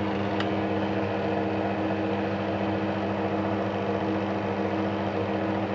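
Hotpoint Electronic 1000 Plus 9534 washing machine's motor whirring steadily in its spin at one unchanging pitch, not climbing to the 1000 rpm final spin, which this machine skips.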